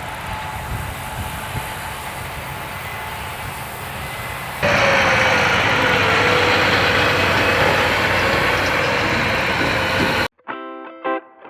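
Steady engine and machinery noise, louder and brighter after an abrupt cut about halfway through, with a steady tone. Electric guitar music starts abruptly near the end.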